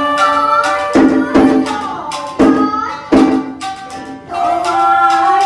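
A 1.8-shaku bamboo shakuhachi playing a Japanese folk-song (min'yō) melody along with a karaoke backing track, with four sharp struck accents in the first three and a half seconds.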